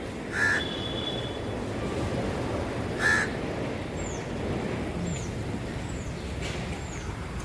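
A crow cawing twice, about three seconds apart, over a steady background hum. A small bird gives short high chirps about once a second in the second half.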